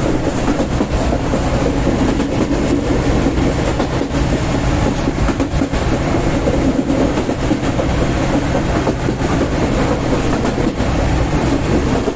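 Moving express passenger train running steadily: a continuous rumble of wheels on the rails with faint clicks.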